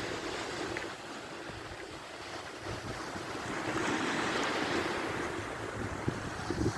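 Sea waves washing ashore with wind buffeting the microphone; the wash swells a few seconds in, and a couple of brief bumps come near the end.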